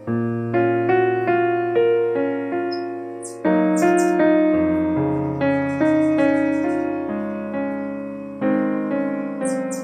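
Background piano music: gentle chords and single notes struck roughly once or twice a second, each left to ring and fade, with faint high chirps over it.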